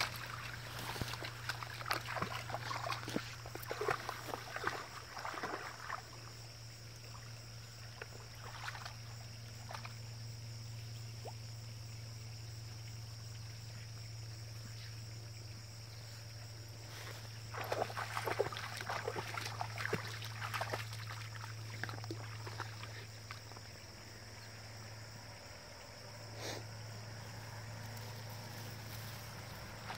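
Water splashing and sloshing as a Bernese Mountain Dog wades in a shallow stream. It comes in bursts through the first several seconds and again a little past halfway, over a steady low hum.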